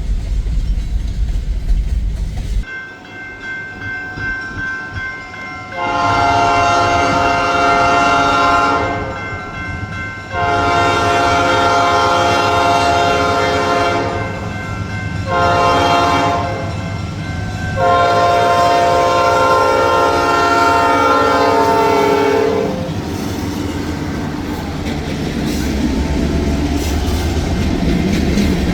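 Air horn of an EMD SD9 diesel locomotive sounding the grade-crossing signal: two long blasts, a short one, then a long one. After the last blast comes the rumble and clatter of the passing train.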